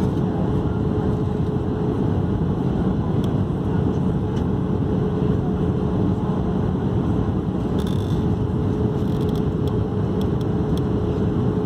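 Steady in-flight cabin noise of an Airbus A319: a constant engine and airflow roar with a steady hum beneath it, and a few faint ticks near the end.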